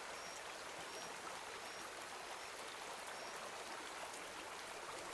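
Faint, steady rain ambience: an even hiss of falling rain with small high drip-like blips now and then.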